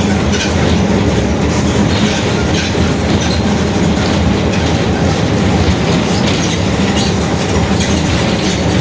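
Mercedes-Benz OF-1721 city bus under way, its differential droning very loud as a steady low hum, with many light clicks and knocks over the top.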